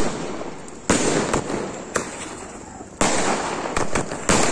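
Fireworks going off at close range: a string of about seven sharp bangs at uneven intervals, each trailed by a dense crackling hiss.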